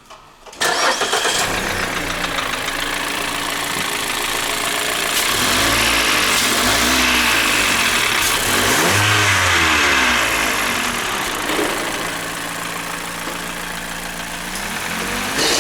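2015 Mazda 6 SkyActiv petrol-era four-cylinder engine running, blipped up and down in revs a few times in the middle, then settling to a steady idle, with the engine knock that was traced to the connecting rods and cured by replacing them.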